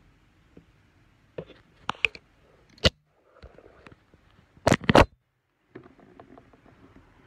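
Handling noise on the recording phone as it is moved and set down: a few scattered knocks and rubs, then a loud cluster of thumps about five seconds in.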